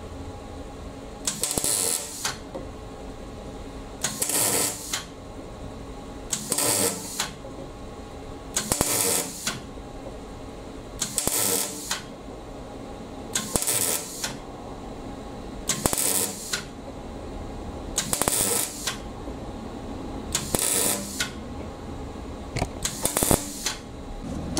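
Semi-automatic wire-feed welder arc crackling in about ten short bursts, each under a second and roughly every two and a half seconds, as it stitch-welds a flange onto a steel exhaust pipe.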